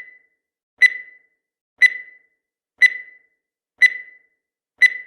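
Countdown timer sound effect: a short, high electronic beep once a second, five times, each sharp at the start and fading quickly, marking each second of the count.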